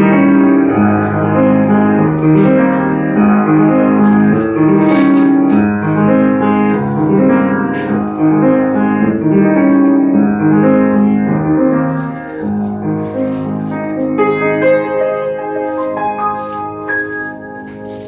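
Grand piano played solo: a dense run of notes and chords, loud at first, dropping to a softer level about twelve seconds in and quieting further toward the end.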